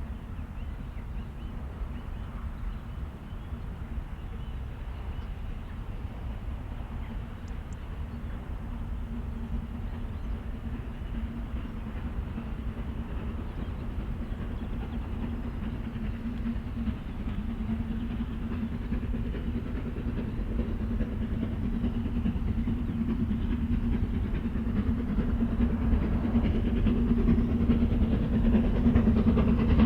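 Steam-hauled train approaching on a heritage line, a steady rumble that grows louder throughout.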